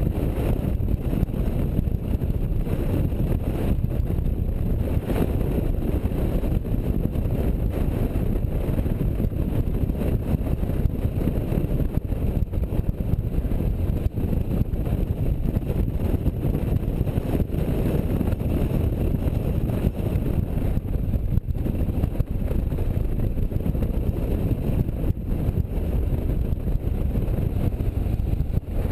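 Touring motorcycle riding at road speed: steady engine noise mixed with wind rush on the onboard camera's microphone.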